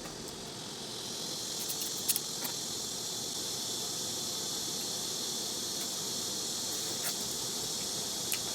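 Grass insects (crickets) chirring in a steady high-pitched drone that swells up about a second in, with a few light clicks.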